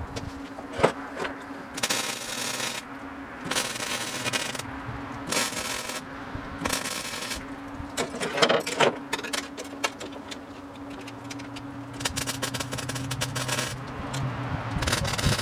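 MIG welder tack-welding sheet-steel patches into a truck tailgate, in short crackling bursts of about a second each, some seven of them, with a steady hum underneath.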